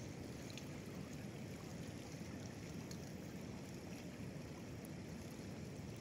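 Steady low rush of flowing river water along a stony bank.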